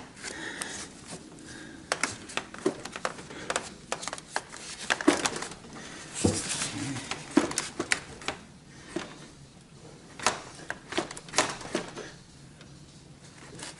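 Irregular clicks, taps and knocks of hands working the plastic fan cowl holder and fan shroud, trying to flip the holder into position.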